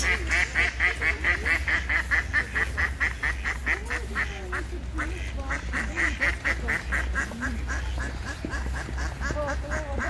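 Mallard ducks quacking in a fast, even run of calls, about five a second, with a short pause about four seconds in.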